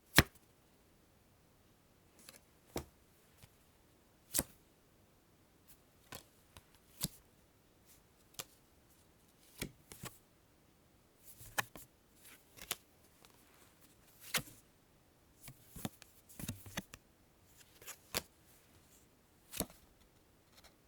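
Playing cards drawn one at a time from a deck: a series of short, crisp card snaps and slides, irregularly spaced a second or two apart, some coming in quick little clusters.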